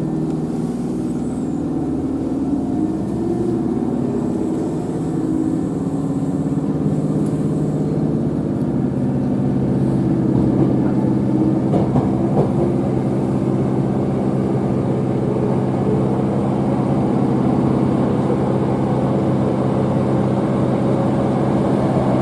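Electric train running: a steady rumble with a low, held motor hum whose tones shift in pitch over the first few seconds and then hold level.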